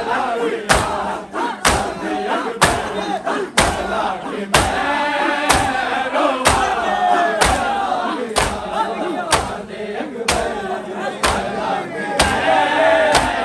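A group of male mourners chanting a noha (Shia lament) together, with hands striking chests in unison about once a second in matam.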